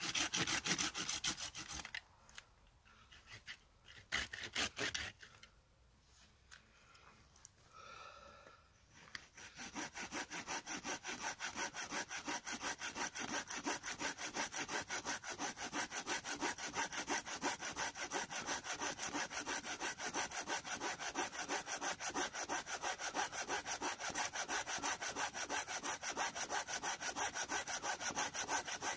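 Hand saw cutting through a thin fallen tree trunk with quick, rhythmic back-and-forth strokes. Two short bursts of sawing with pauses between them come first, then steady sawing from about nine seconds in.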